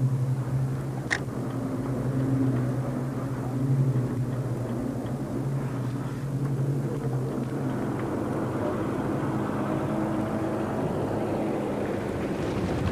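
Vintage propeller aircraft droning overhead: a steady low engine drone of several tones, shifting slightly in pitch in the second half, with a brief click about a second in.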